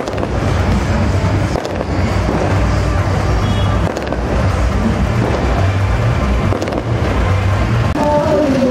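Loud street-procession din: music played over a dense, unbroken wash of noise, with a wavering tune standing out near the end.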